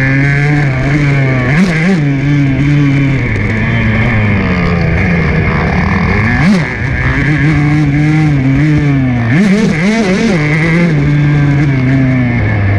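Motocross dirt bike engine heard close up from on board, holding a steady note under throttle, with quick revs up and down about two seconds in, a sharp blip and brief drop about six and a half seconds in, and a burst of revving around nine to ten seconds in.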